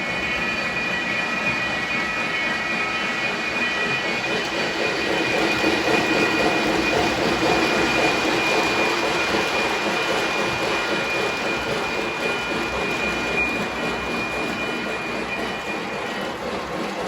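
Lionel O-gauge model train rolling along its track, a steady rumble with a thin high-pitched whine. It grows louder over the middle and fades off toward the end as the train passes and moves away.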